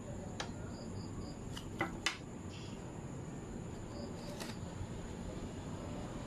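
A few sharp, light clicks and taps, the loudest two close together about two seconds in, over a steady hiss with a faint high whine and a few faint short chirps.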